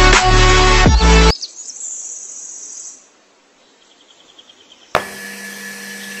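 Loud electronic music with a heavy beat, which cuts off after about a second. About five seconds in, a small DC toy motor starts with a sudden steady hum as a 9-volt battery is connected to it.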